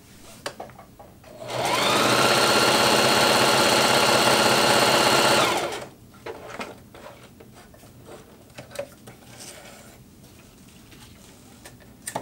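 Singer Heavy Duty HD6360M sewing machine running a short zigzag stitch: it speeds up about a second and a half in, runs steadily at speed for about four seconds, then stops. Small clicks of fabric handling follow.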